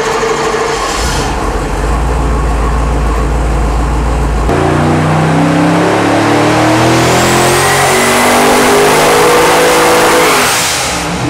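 Twin-turbo 454 cubic-inch Chevrolet LS V8 running on an engine dyno. It holds a steady low drone for about four seconds, then revs steadily upward under load in a dyno sweep past 6,500 rpm, with a high whine climbing alongside. It drops off just before the end.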